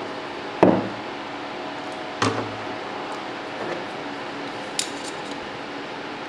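A short, heavy steel round bar knocked down on a hard work surface twice, each knock with a brief metallic ring, followed by a lighter knock and a sharp click, over a steady background hiss.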